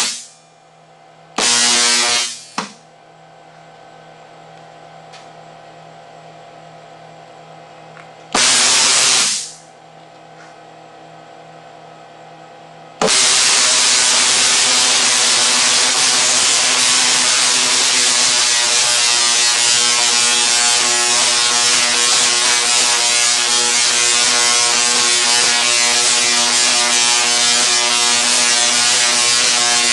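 SIDAC-driven Tesla coil firing its sparks, heard as a loud, harsh buzz. It comes in three short bursts, near the start, about 1.5 s in and about 8.5 s in, with a quieter steady hum between them. From about 13 s the coil runs without a break.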